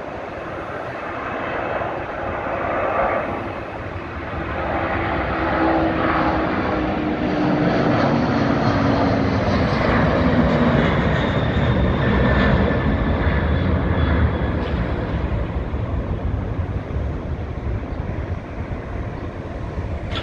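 Boeing 767-300ER freighter's twin General Electric CF6 turbofans at takeoff thrust. The roar grows as the jet climbs out past, with a whine that falls in pitch as it goes by, then gives way to a deep rumble that eases slightly as it moves away.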